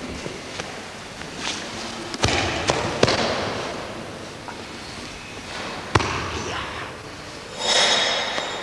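Thumps and slaps of aikido practitioners hitting the mat during a demonstrated throw: a cluster of sharp impacts about two to three seconds in, another about six seconds in, and a longer rushing, scuffing noise near the end.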